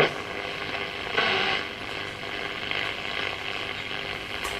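Philips Valiant 2 valve radio tuned between stations on its shortwave band: a steady hiss of static and crackle, with a brief louder snatch of signal about a second in.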